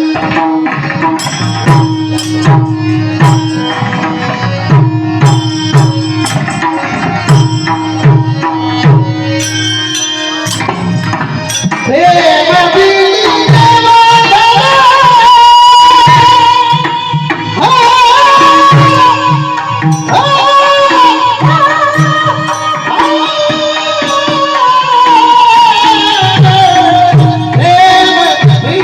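Kirtan music: a drum keeps a steady repeating rhythm under a held steady note, with sharp clicks on top. About twelve seconds in, a singer enters with long, ornamented notes that glide up and down while the drum carries on.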